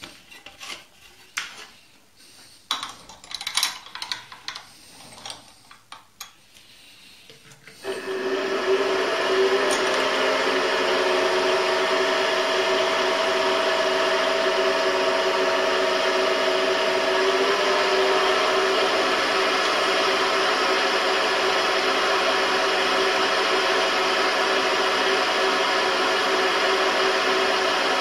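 A few clicks and knocks of handling parts on the mill, then about eight seconds in the benchtop milling machine's spindle motor starts and runs steadily with a whine of several tones, which steps slightly higher in pitch about halfway through.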